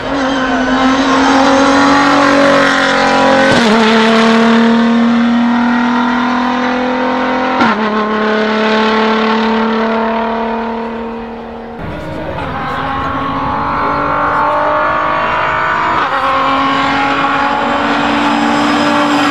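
The 3.5-litre twin-turbo V6 of a Toyota GR DKR Hilux rally-raid truck running loud at high, steady revs as it drives by. The engine note steps abruptly in pitch several times.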